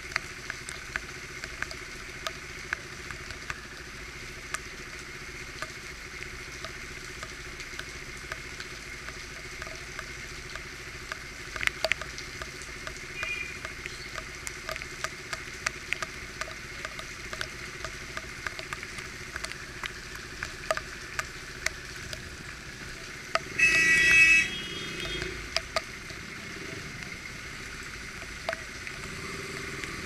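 Rain pattering, with drops ticking sharply on the GoPro housing, over a KTM RC's single-cylinder engine running low as the bike creeps along. About three-quarters of the way in, a loud tonal blast lasts about a second.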